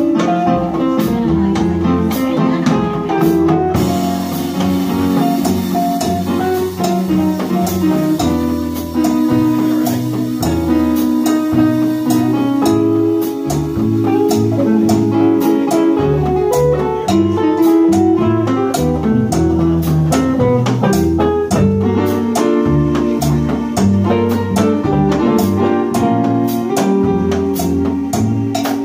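A live jazz combo playing: guitar and piano accordion over a drum kit, with cymbals ticking along in a steady beat.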